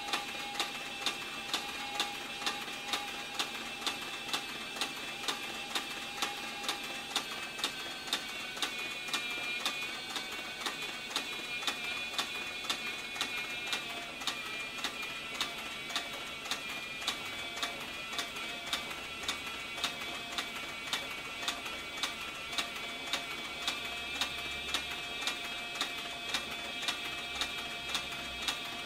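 Cowboy CB4500 leather sewing machine stitching slowly through saddle-skirt leather, with an even click about one and a half times a second as each stitch sets, over a steady whine.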